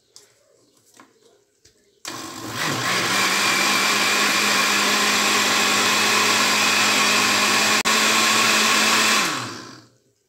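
Countertop jug blender running, puréeing apple, orange and lemon pieces with water into juice. It switches on about two seconds in, spins up to a steady whir, then winds down and stops near the end.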